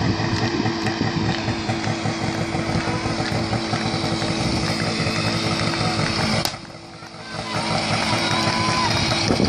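Small engine of a portable fire pump running steadily, dropping away for about a second about two-thirds of the way in.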